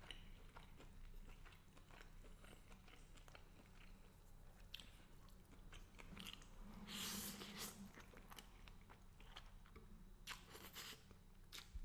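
Faint close-up chewing and eating sounds of a man eating garlic butter shrimp and angel hair pasta: small wet clicks of the mouth and utensils, with a louder noisy stretch about seven seconds in.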